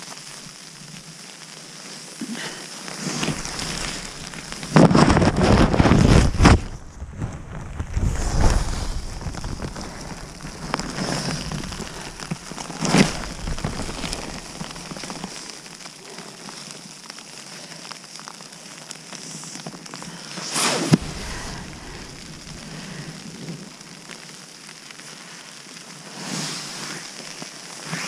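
Crackling patter of freezing rain on rain gear and tarp, mixed with the rustle of a rain jacket as hammock suspension cord is handled. The loudest rustling comes about five to six and a half seconds in, with a couple of sharper crackles later.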